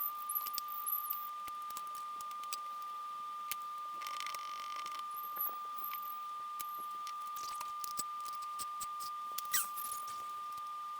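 Faint scattered clicks, small squeaks and handling noises from hand assembly of plotter parts, over a steady high-pitched whine.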